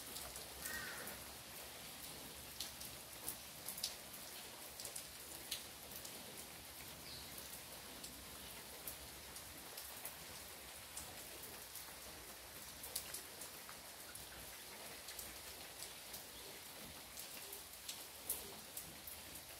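Steady rain hiss with individual drops ticking sharply on a nearby surface at irregular moments, falling while the sun is out. A brief chirp about a second in.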